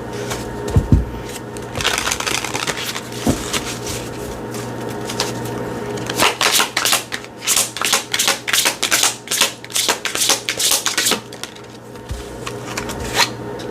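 A deck of oracle cards being shuffled by hand: a brief rustle, then a fast run of card-on-card flicks lasting about five seconds, near the middle.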